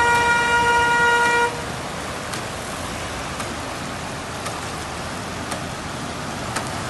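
A vehicle horn sounds one steady held note that cuts off about a second and a half in. After it comes a steady hiss of rain and traffic splashing through flood water.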